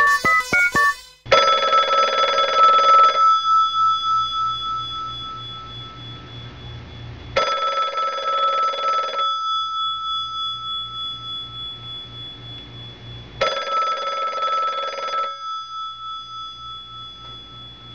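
A telephone bell ringing three times, each ring about two seconds long and about six seconds apart, its tone fading away after each ring. Plucked music ends about a second in.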